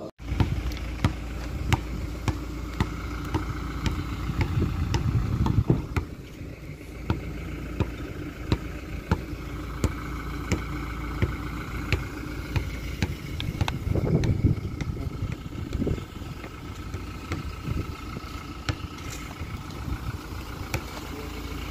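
Car driving, with a steady rumble of engine and road noise and frequent sharp clicks and knocks over it.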